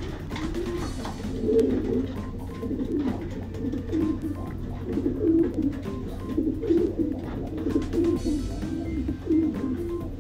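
Several racing pigeons cooing, their low, warbling coos overlapping without a break.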